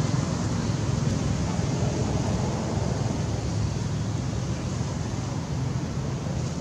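Steady low rumbling background noise with an even hiss above it, easing off slightly toward the end; no separate calls or knocks stand out.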